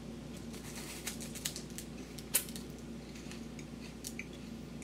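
Chewing a puffed corn Umaibo stick: light, irregular crunches and crackles, an airy rather than hard crunch, with the loudest crunch about two and a half seconds in.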